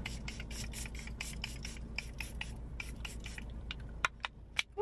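Quick, irregular rubbing and brushing strokes close to the microphone, several a second, with a few sharper clicks near the end.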